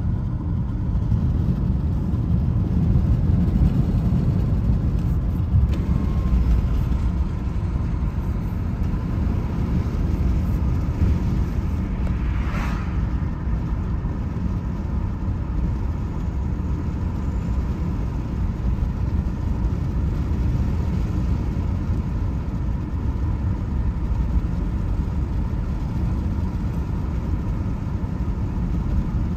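Steady low rumble of a car's tyres and engine heard from inside the cabin while driving at road speed, with one short higher sound about twelve seconds in.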